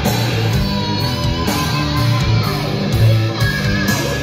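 Rock music with electric guitar, played back loudly over studio monitor speakers.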